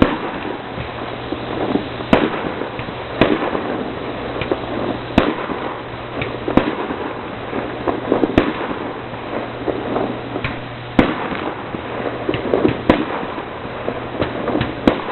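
Fireworks display: aerial shells bursting in a string of sharp bangs, the loudest every second or two, over a continuous crackle.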